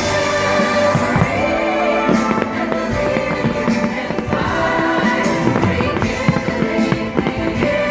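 Fireworks show soundtrack music playing loudly over speakers, with firework bursts banging and crackling through it.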